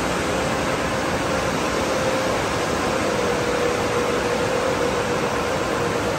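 Automatic tunnel car wash equipment running: a steady rush of noise with a constant hum.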